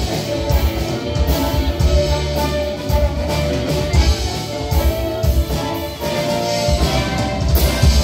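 Live band music: a saxophone playing sustained melody notes over a drum kit and bass with a steady beat.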